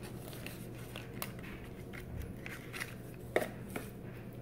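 Small clicks and light rustling of a paperboard product carton being opened by hand and a tube of healing balm slid out of it, with two sharper ticks about three and a half seconds in.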